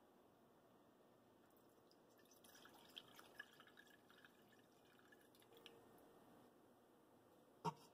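Water poured from a glass measuring cup into an empty stainless steel stockpot, heard as a faint trickle and drips starting about two and a half seconds in. Near the end comes a single short, sharp click.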